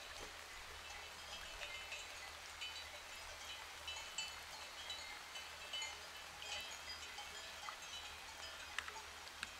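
Bells on grazing sheep clinking faintly and irregularly, with light rain pattering.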